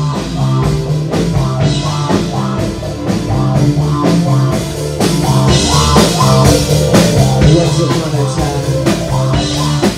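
Rock music: a band playing with drum kit, bass and guitar, with a steady beat.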